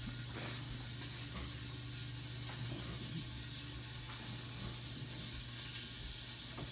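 Hamburger patty sizzling steadily as it fries in an electric skillet, with a low steady hum underneath.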